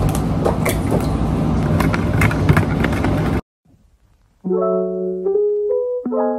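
Dense rustling and handling noise with sharp clicks and taps from hands working at a mixing bowl while eggs are cracked, cut off abruptly about three seconds in. After a second of near silence, background electric piano music begins as a series of held chords.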